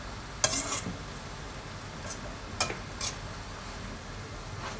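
A spatula stirring and tossing shredded vegetable and noodle filling in a black steel wok, scraping against the pan, over a low, steady sizzle. The loudest scrape comes about half a second in, with a few shorter ones around two to three seconds in.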